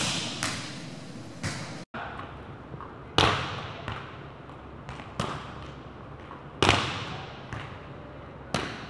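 Volleyball being hit and dug in a gym drill: sharp slaps of hands and forearms on the ball every second or two, each with a short hall echo.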